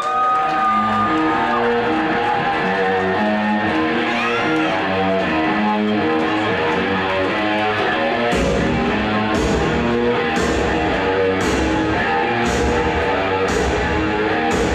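Rock entrance music with electric guitar played for the champion's ring entrance. Drums and bass come in about eight seconds in, with a hit about once a second.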